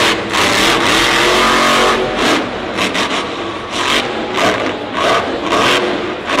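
Grave Digger monster truck's engine revving hard, climbing in pitch over the first two seconds, then a string of short throttle surges as the truck jumps the crushed cars.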